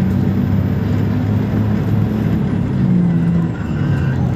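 Road traffic: a motor vehicle engine running with road noise, its low hum shifting in pitch as it changes speed.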